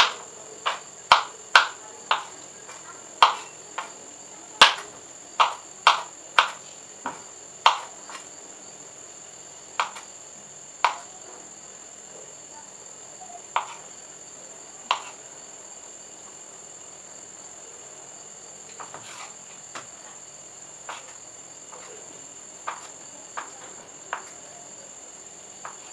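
A kitchen knife knocking on a wooden cutting board as potato and paneer are sliced: sharp knocks about two a second for the first eight seconds, then slower and more scattered. A steady high-pitched whine runs underneath.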